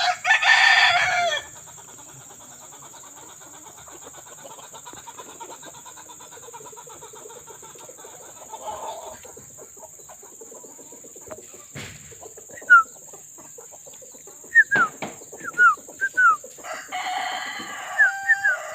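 Rooster crowing: one loud crow at the start and another near the end, with a run of short, high, falling chirps from a small bird in between.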